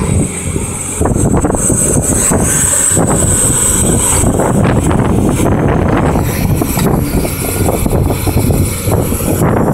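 Caterpillar 329D hydraulic excavator running, its diesel engine giving a loud, steady, dense rumble.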